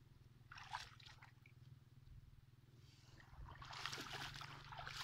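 Feet wading through shallow muddy water, splashing: one short splash about a second in, then a longer run of splashing strides near the end.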